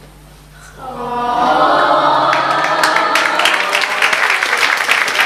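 A large audience breaks into loud cheering and shouting together about a second in, with clapping joining soon after.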